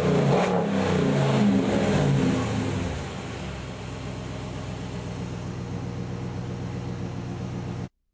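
Dodge Caliber's four-cylinder engine being revved, then dropping back about two and a half seconds in to a steady idle. The sound cuts off abruptly near the end.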